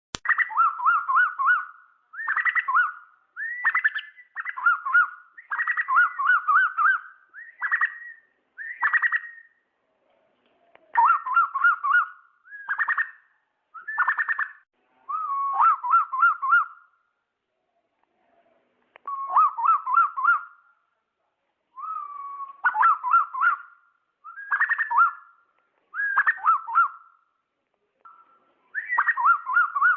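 Asian koel calling: short phrases of quick, wavering whistled notes, repeated again and again with brief pauses between them.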